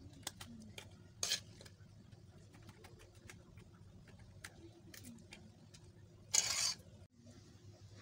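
Metal spoon tapping and clinking against a glass jar as pickle is spooned in: light scattered clicks, with two louder short noises about a second in and near the end.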